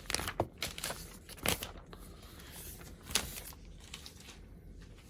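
Packaging and an iPad Magic Keyboard being handled during unboxing: a few sharp rustles and light knocks in the first three and a half seconds, then quieter rubbing.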